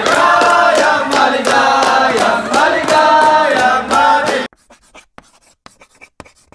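A group of restaurant staff singing a birthday song together and clapping in time, about three claps a second; it cuts off suddenly partway through. Faint pen-scratching sounds of handwriting follow.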